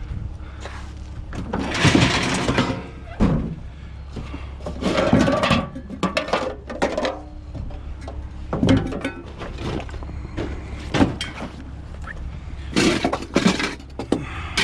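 Irregular thunks and clattering of scrap items being handled and dropped while they are sorted, over a steady low hum.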